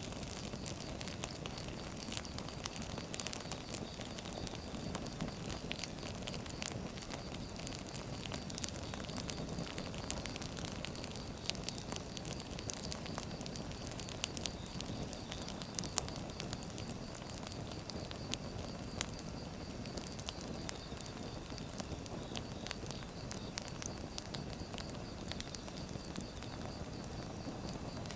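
Firewood burning: a steady low rush of flame with frequent sharp, irregular crackles and pops.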